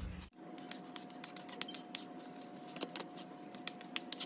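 Metal putty knives scraping and clicking against a veneer board as wood filler is spread thin, in many small irregular scratches and ticks, over a faint steady hum.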